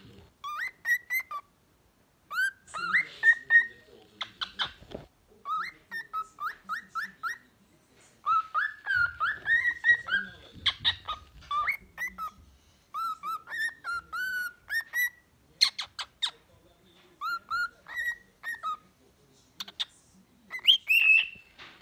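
Cockatiel singing a mixed song of short whistles: quick runs of rising notes broken by brief pauses, with sharp chirps and clicks mixed in.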